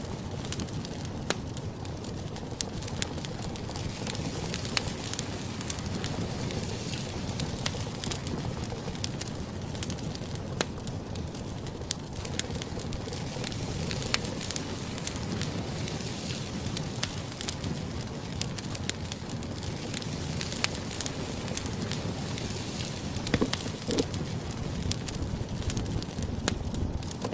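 Food sizzling in a hot frying pan, a steady hiss with frequent small pops throughout.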